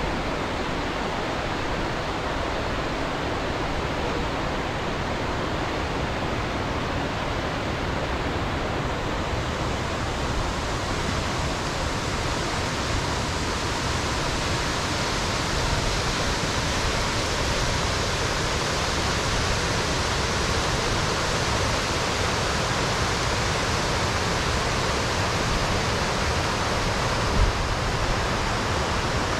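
Bjarnarfoss waterfall rushing in a steady, even roar, growing brighter in the upper range about a third of the way in. A brief knock sounds near the end.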